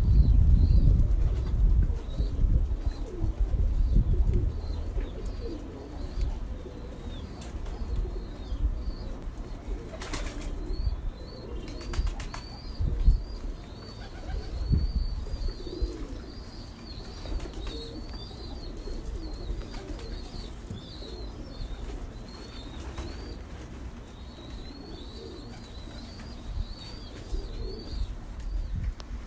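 Kept pigeons cooing, with a long run of quick, high, repeated chirps from small birds through most of it. There are a few short clatters about ten and twelve seconds in, and a low rumble is loudest in the first few seconds.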